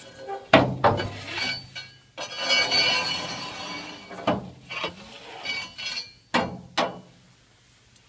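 Metal scraper tool scraping ash off the heat-exchanger plates of an outdoor wood boiler and pushing it back into the chimney: long rasping scrapes broken by sharp metal knocks where the tool strikes the exchanger, the loudest knock about half a second in.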